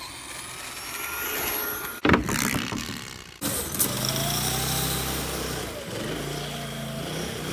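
Vehicle sounds cut together: a radio-controlled car's motor whining and rising in pitch, a loud noisy burst about two seconds in, then from about three and a half seconds a small engine running steadily.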